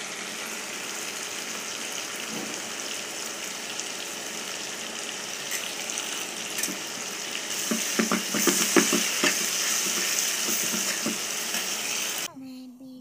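Noodles and vegetables sizzling as they fry in a pan, a steady hiss. In the second half a utensil clicks and knocks against the pan as they are stirred. The sizzling cuts off suddenly near the end.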